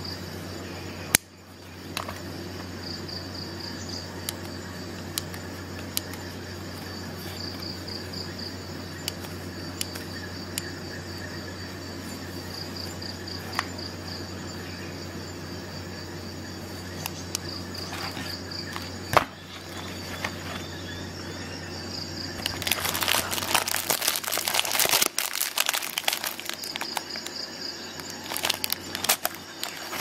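Leatherman Raptor rescue shears being handled: scattered sharp metal clicks as the folding handles are opened and moved. About three-quarters of the way through comes a louder stretch of rustling and scraping. A steady low hum and short repeated high chirping trills run underneath.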